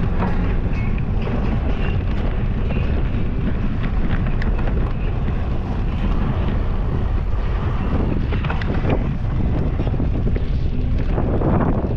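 Wind rushing over a GoPro's microphone while a cyclocross bike is ridden hard, with frequent small clicks and rattles from the bike over rough ground and a louder rush near the end.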